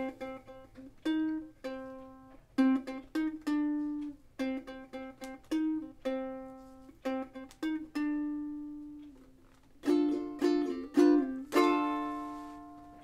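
Ukulele picked one note at a time in a rhythmic riff, each note ringing briefly. Near the end come a few quick strummed chords, then a last chord left to ring and fade.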